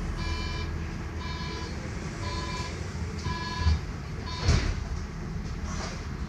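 Tram door-closing warning beeping about once a second, each a short high tone, over the low rumble inside the car. The doors shut with a knock about four and a half seconds in.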